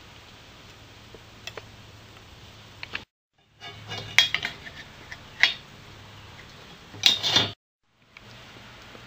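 Thin aluminium strips clinking and rattling as they are handled, with a few sharp metallic clinks about halfway through and a short cluster of them near the end. Before that come a few faint clicks from tin snips over a low steady hum. The sound is broken by two brief silent gaps.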